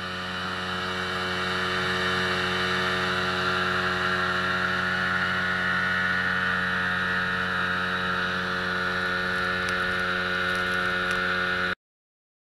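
Outboard motor running steadily at speed, with the rush of the boat's wake spray close by. It grows louder over the first two seconds, then holds steady and cuts off suddenly near the end.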